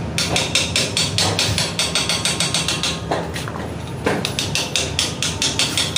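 Rapid, even metallic tapping, about six knocks a second, with a few brief pauses.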